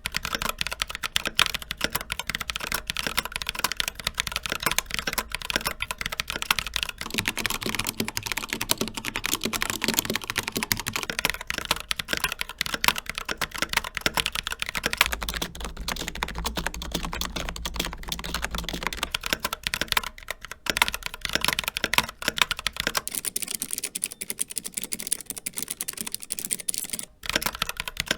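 Continuous fast typing on four mechanical keyboards in turn, changing about every eight seconds. First a Glorious GMMK Pro with Glorious Panda tactile switches, then a Corsair K70 Pro Mini Wireless with Cherry MX Red linear switches, then a Lidl Silvercrest semi-mechanical keyboard, and near the end a Keychron K3 with Keychron Optical Blue clicky switches.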